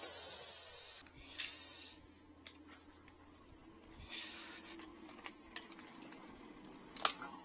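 Rustling and scattered light clicks and knocks of small things being handled, with one sharper click about seven seconds in.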